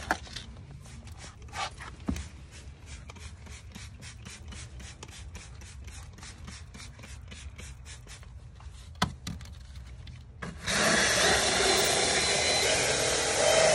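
Cloth rubbing over a vinyl door panel in quick repeated strokes, about three to four a second. After about ten and a half seconds a cordless drill with a round scrub brush starts running against the panel, a loud steady scrubbing noise.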